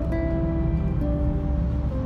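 Background music with held notes that change every half second or so, over a steady low rumble.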